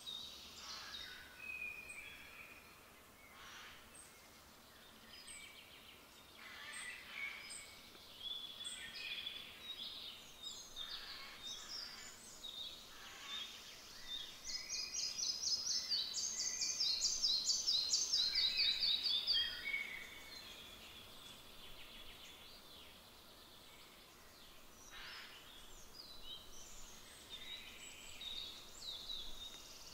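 Red-breasted flycatcher singing: about halfway through, a loud song of about five seconds made of quickly repeated high notes that fall in pitch at the end. Other forest birds call and sing more faintly around it.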